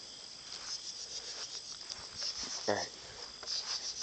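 Crickets chirping steadily, a fast high pulsing. A brief low voice-like sound comes once, a little before three seconds in.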